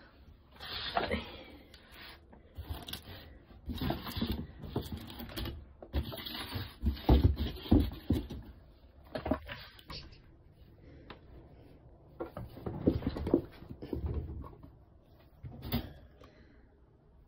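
Irregular bursts of rustling and light knocking, in clusters with quieter gaps between: movement and handling around a wire pet pen and cardboard box.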